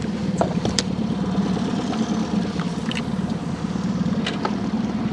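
Boat motor idling steadily, with a few light clicks and knocks over it.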